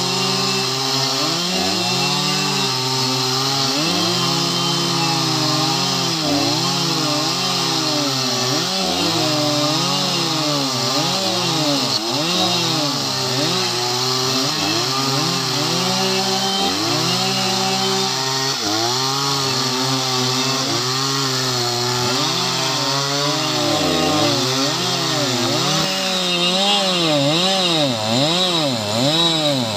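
Two large two-stroke chainsaws running at once, ripping lengthwise along a felled red mahogany log. The engine pitch keeps rising and dipping as the chains bite into and ease out of the wood.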